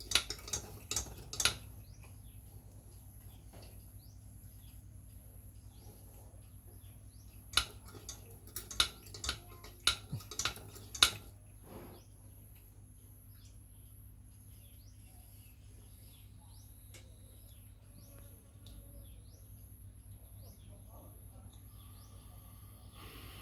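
Sharp metallic clinks and taps as parts of a kerosene pressure lantern are handled, in two clusters: one at the start and one from about seven to eleven seconds in. Faint birds chirp throughout.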